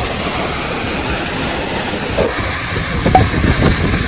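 Steady rush of Soochipara Falls, a tall multi-tiered waterfall pouring into a pool, with a few brief louder sounds in the second half.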